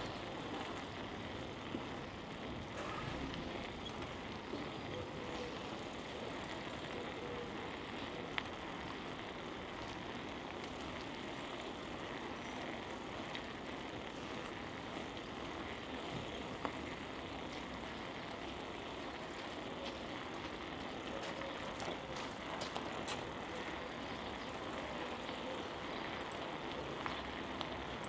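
Steady rushing noise of a bicycle ride: wind on the microphone and the rolling of the tyres, with a few faint clicks.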